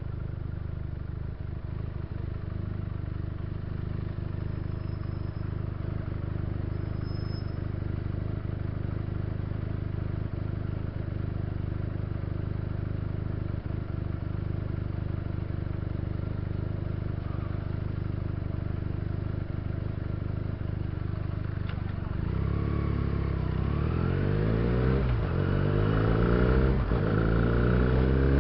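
Benelli TNT300's 300 cc parallel-twin engine idling steadily at a standstill, then revving up as the bike pulls away, its pitch climbing and falling back twice at gear changes and getting louder near the end.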